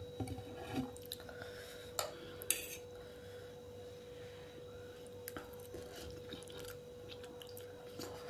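A fork clinking and scraping against a plate a few times in the first three seconds, then quieter small clicks and mouth sounds of noodles being eaten.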